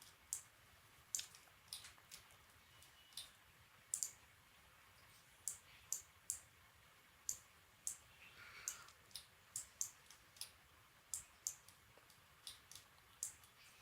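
Faint, sharp clicks of a computer mouse at irregular intervals, about one or two a second.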